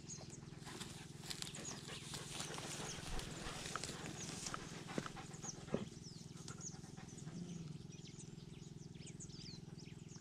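Faint rustling and scratching of beagles digging and pushing through a dry brush pile, with a couple of sharp clicks about five seconds in. Thin, high chirps come and go throughout.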